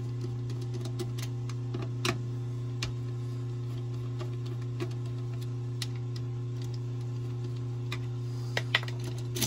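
Screwdriver clicking and scraping against the screw terminals of a contactor in an AC electrical panel as the compressor wires are loosened and disconnected: scattered sharp clicks, the sharpest about two seconds in and near the end. Under them runs a steady low electrical hum.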